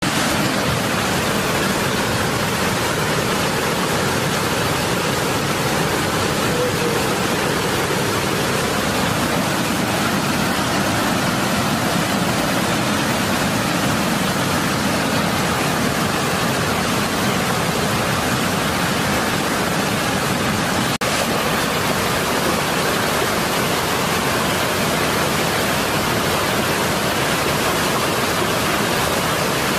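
Muddy floodwater pouring over a low dam and churning into whitewater below, a loud, steady rush. It drops out for an instant about two-thirds of the way through.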